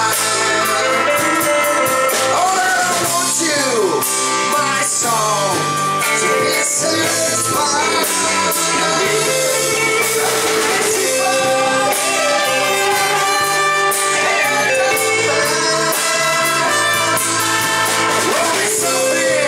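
A small live band playing a song: a singer at the microphone over trumpet, acoustic and electric guitars, and drums, without a break.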